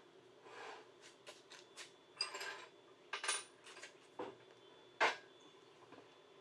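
Steel plates and parts handled on a steel table: a run of clinks, short scrapes and knocks of metal on metal. The loudest is a sharp knock about five seconds in.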